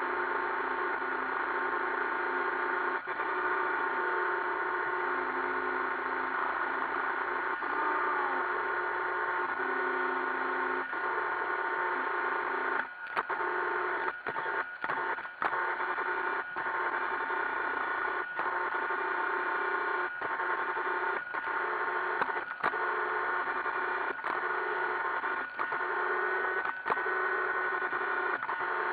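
iRobot Roomba 560 robot vacuum running: a steady whir of its motors with several steady whining tones. Short clicks and brief dropouts come again and again through the second half.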